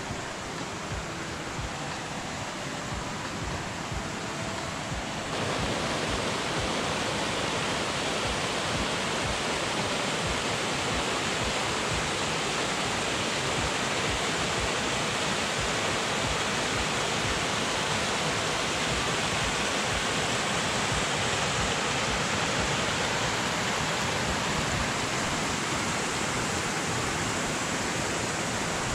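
Small mountain stream rushing steadily over little cascades, a constant even wash of water noise that grows louder and fuller about five seconds in.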